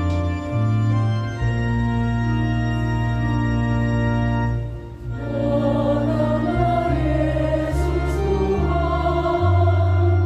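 Organ playing held chords alone, then a choir comes in singing with the organ about halfway through, after a brief pause.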